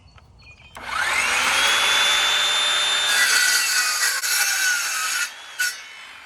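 Electric power saw spinning up with a rising whine about a second in, then dropping in pitch under load as it cuts through a wooden post to trim the top off. It stops after about four seconds, followed by a short knock.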